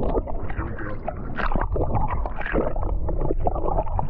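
Sea water sloshing and gurgling against a boat's hull, heard muffled through a microphone at and under the waterline, as a cubera snapper is held in the water for release and splashes with its tail.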